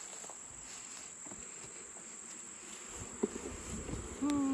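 Honeybees buzzing around the hives over a steady high insect trill. Near the end a single bee flies close past the microphone with a brief loud buzz.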